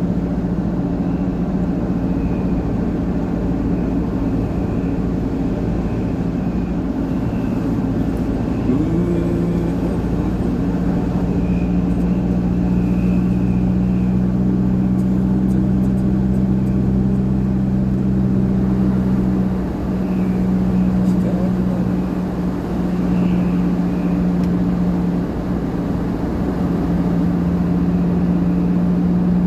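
A four-wheel drive's engine running steadily at road speed over a haze of road noise. About nine seconds in, the engine note rises and settles at a new steady pitch.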